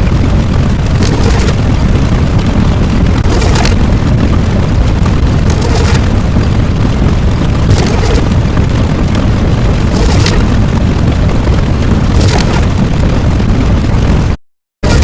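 Loud, continuous rumbling noise with sharp cracks about every two seconds, cutting out for about half a second near the end.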